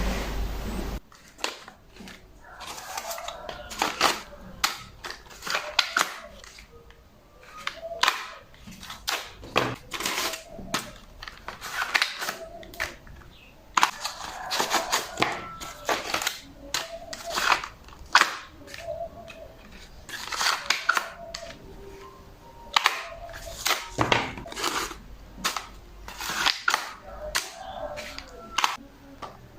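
An irregular series of sharp clicks and knocks, several a second in clusters separated by short pauses.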